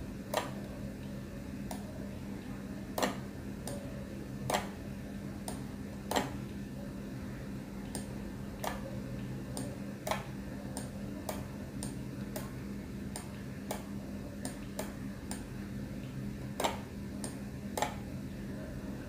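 Computer mouse button clicking irregularly, about once a second, as brush strokes are pressed and released, over a steady low electrical hum.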